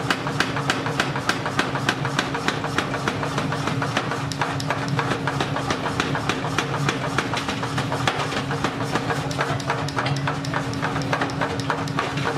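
Mechanical power hammer pounding a red-hot axe blank held in tongs, about five sharp blows a second, over a steady hum.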